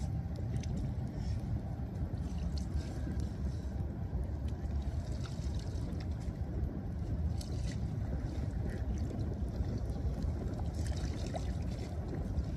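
Shallow floodwater splashing and sloshing as a person steps and reaches into it by hand, over a steady low rumble.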